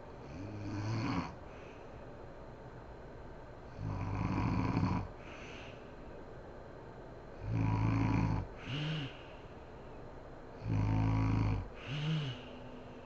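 A sleeping woman snoring: four heavy snores about three and a half seconds apart, each lasting about a second. The third and fourth are each followed by a short, lighter note that rises and falls in pitch.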